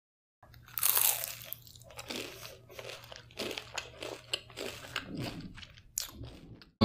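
Crunching of a crisp, thin Oreo dosa being bitten: a run of short crackly crunches, loudest about a second in.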